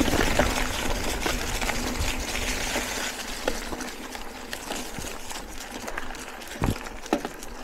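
Mountain bike ridden over a rough dirt trail: tyre noise and rattling from the bike, with scattered knocks over bumps, growing quieter after the first few seconds.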